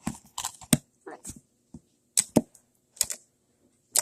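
White glue slime being poked and squished by hand, giving a series of sharp, irregular pops and clicks, about eight in four seconds.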